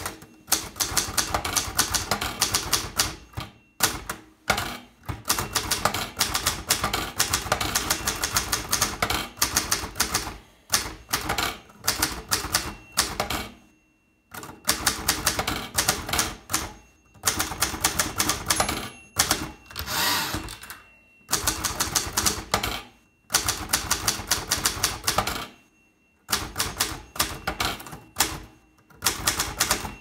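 Zeta manual typewriter, made by Zbrojovka Brno, being typed on: rapid key and typebar strikes in runs of a few seconds, broken by short pauses.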